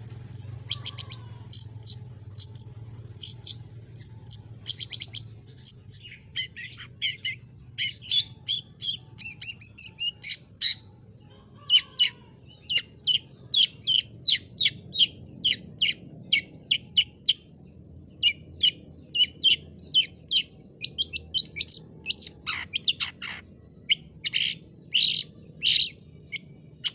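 Long-tailed shrike singing: a long run of short, sharp, high notes, two or three a second, broken by a few brief pauses.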